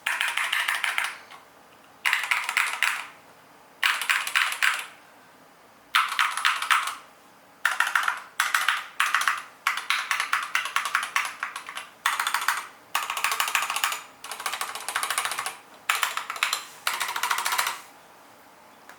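KBD75v2 mechanical keyboard with stock Tealios v2 linear switches being typed on fast, in short bursts of rapid keystrokes about a second long with brief pauses between them.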